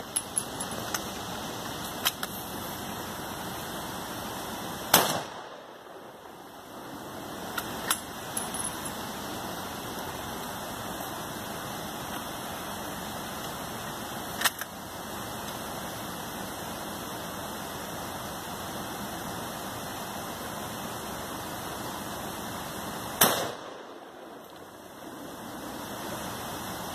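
Two rifle shots, one about five seconds in and one near the end, each a sharp crack after which the steady rushing background noise briefly drops away. A few lighter clicks fall between them.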